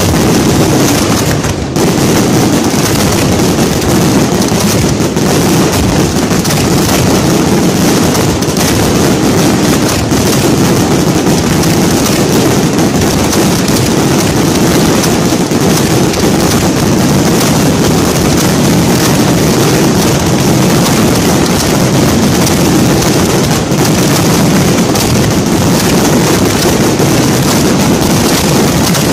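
Ground fireworks barrage going off at very close range: dense, rapid bangs and crackling that merge into one loud, unbroken wall of noise, with no let-up.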